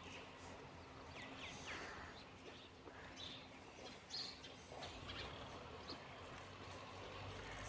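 Faint scattered bird chirps, a few short high calls about a second and a half in and again around four seconds in, over a steady low hum.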